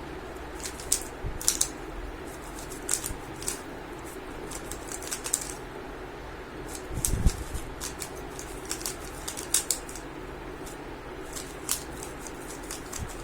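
3x3 Rubik's Cube being turned fast by hand during a timed speedsolve: irregular runs of sharp plastic clicks and clacks as the layers snap round, over a steady background hum, with one low thump about seven seconds in.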